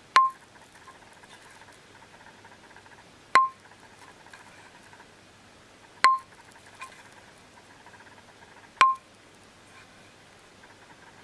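A hanging bamboo tube struck with a small hand-held hammer four times, evenly about every three seconds. Each strike is a sharp knock with a brief ringing tone, the tube's resonance. The sound is dry, with no room echo.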